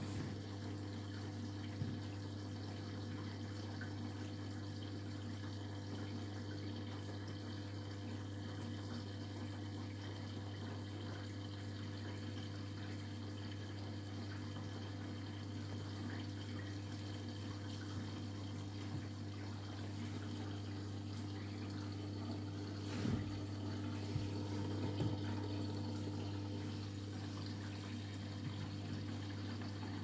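Beko WTK104121W front-loading washing machine taking in water for the rinse: water running into the drum over a steady low hum. There are a few soft knocks near the end.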